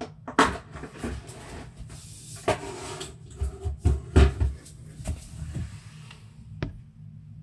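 Rummaging for a screwdriver bit: a string of clicks and knocks of hard objects being picked up and put down, the loudest a little after four seconds in, over a steady low hum.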